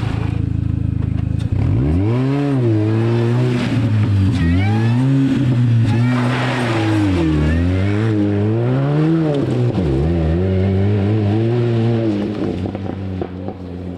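Rally car engine at full effort on a stage: a steady low drone for the first second and a half, then the note repeatedly climbs and drops every second or two as the driver works the throttle and gears.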